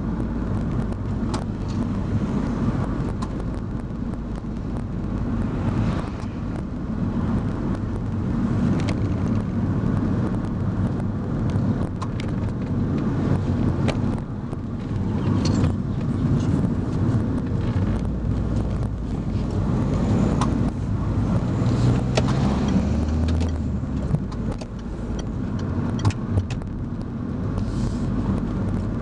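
Car engine and tyre noise heard from inside the moving car, with a steady low rumble whose engine note rises and falls through the bends. Occasional small clicks sit over it.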